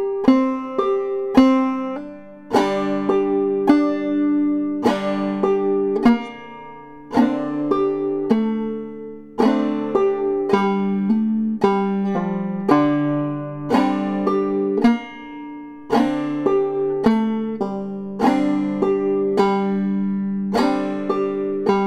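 Five-string banjo played clawhammer style, running through the minor-key B part of an old-time tune: a steady run of plucked notes, each sharp at the start and ringing out, with hammer-ons and pull-offs.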